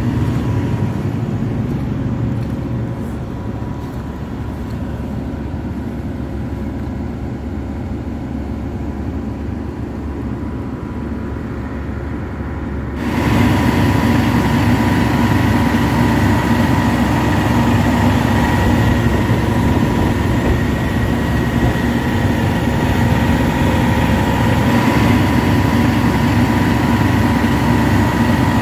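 Hitachi ZX350LC-3 excavator's Isuzu 6HK1 six-cylinder diesel engine running steadily, with a faint steady whine over it. About halfway through the sound becomes louder and clearer, as heard close at the open engine bay.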